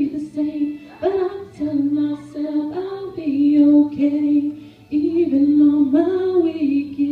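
A woman singing a slow song into a microphone, holding long notes with short breaks between phrases, over low held notes underneath.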